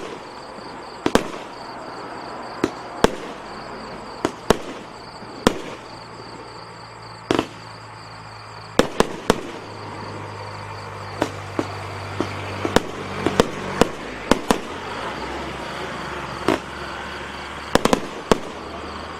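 A 25-shot, 500 g consumer firework cake firing its shots one after another: about two dozen sharp bangs at irregular intervals, coming fastest in the middle of the run.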